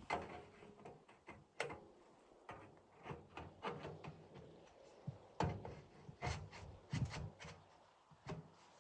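Irregular knocks, clicks and scrapes at an uneven pace, the loudest a little over five seconds in and again around six and seven seconds in.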